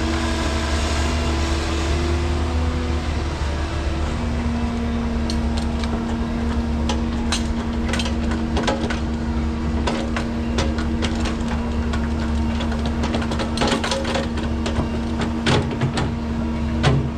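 Construction machinery running with a steady droning hum over a low rumble. Scattered sharp clicks and knocks join in from about five seconds in and bunch up near the end.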